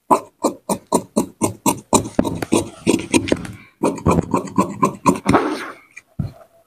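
Large tailor's shears cutting through blouse fabric on a table in quick rhythmic snips, about five a second. The snips crowd closer together in the second half and stop shortly before the end.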